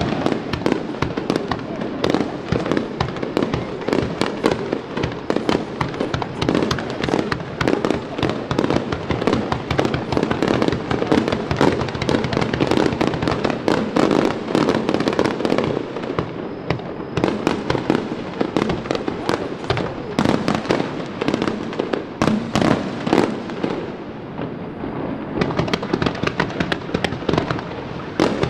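Aerial fireworks display: a dense, unbroken barrage of shell bursts, with bangs and crackling many times a second.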